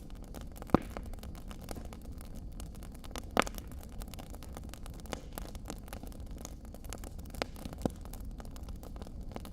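Wood fire crackling in a stone fireplace: constant small clicks over a low steady rumble, with two sharp pops, one under a second in and one about three and a half seconds in, and a couple of smaller pops near the end.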